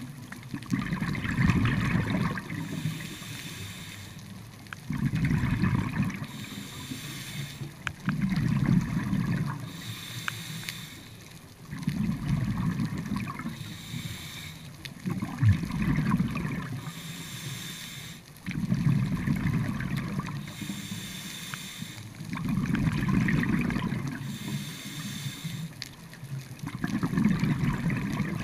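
Scuba diver breathing through a regulator underwater: a rush of exhaled bubbles followed by the hiss of the inhale through the demand valve, repeating about every three and a half seconds.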